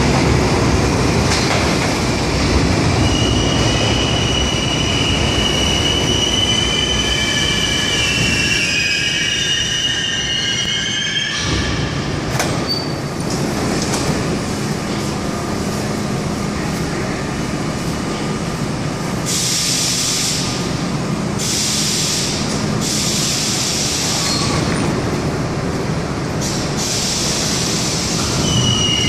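R32 New York City subway train pulling in, its wheels and brakes squealing in high tones until it stops about eleven seconds in. It stands with a steady low hum, broken by several short hissing bursts, and near the end starts to move off with the squeal returning.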